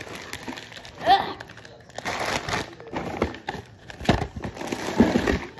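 Candy packaging crinkling and rustling while a box of candy is rummaged through by hand, with a few sharp knocks and clicks near the end.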